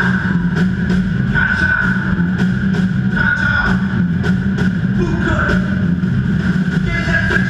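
Live rock band playing loudly through a PA, with electric guitars over a drum kit beating about three strikes a second.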